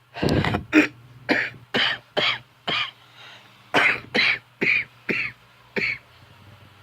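A person coughing in a fit of about eleven short, hard coughs, roughly one every half second, in two runs with a short pause between. The cough comes from lungs scarred by scleroderma, which has left stiff fibrous tissue in the lower lobes.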